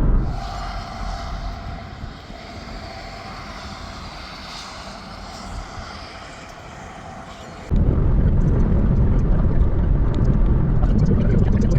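Strong storm wind gusting over the microphone: a softer windy hiss at first, then about two-thirds of the way in a sudden loud, low rumbling buffet.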